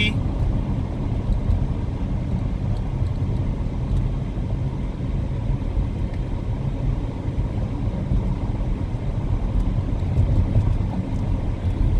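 Steady low rumble of tyre and road noise heard inside the cabin of a Mitsubishi Outlander PHEV cruising at highway speed, around 90 km/h, on electric power with the petrol engine off.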